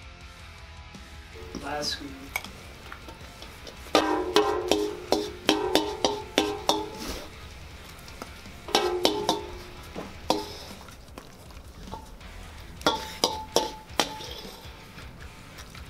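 A metal spoon scraping and clinking inside a large stainless steel mixing bowl, the bowl ringing with each knock, as the last food is scooped out. The clatter comes in bursts, the longest about four to seven seconds in, with more near nine and thirteen seconds.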